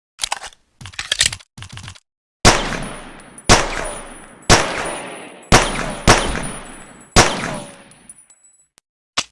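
Colt pocket pistol: three short bursts of mechanical clicking as the gun is handled, then six shots about a second apart, each with a ringing, echoing tail, and a single click near the end.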